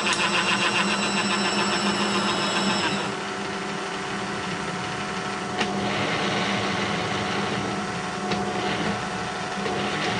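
Horizontal milling machine with its spindle at 480 RPM and the table on power feed, a disc-shaped cutter milling a full-depth spline groove in a Delrin shaft with a fast, even chatter. About three seconds in the cutter clears the end of the groove and the chatter stops, leaving the spindle and power feed running with a steady hum.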